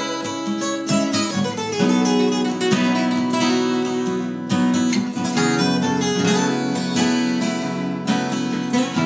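Two acoustic guitars, one of them a Crafter, playing together in an instrumental passage of a song.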